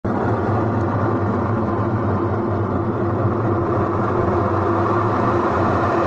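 Electrolux EWT604S top-load washing machine running with a steady hum. This is a machine that will not spin, a fault put down to a stuck gearbox upper bearing.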